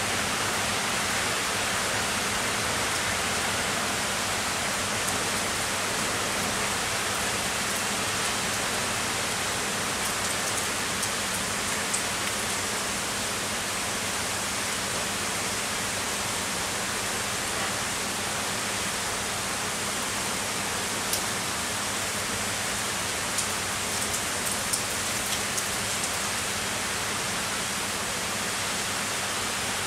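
Heavy rain falling steadily, an even dense hiss, with a few sharp ticks of single drops landing close by in the second half.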